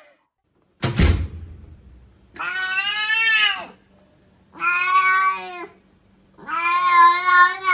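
A cat meowing three times in long, drawn-out calls that rise and fall in pitch, the last one the loudest, after a sharp thump about a second in.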